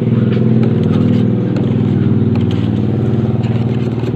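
An engine running steadily, a loud low drone with a fine rapid pulse, with faint clinks of a wire whisk against a steel bowl over it.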